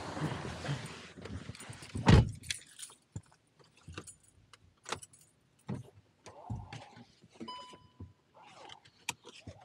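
A Volkswagen car door shuts with a heavy thump about two seconds in, cutting off the outside traffic noise. Then come keys jangling, clicks and rustling as the driver settles into the seat, with a short electronic chime from the car near the end.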